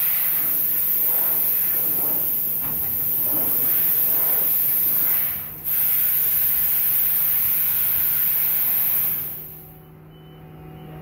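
High-pressure compressed-air jets of a Laborsave machine's auto-clean function blowing over the hopper grid and cutting blades: a steady high-pitched hiss that breaks off for a moment about halfway through and fades out near the end.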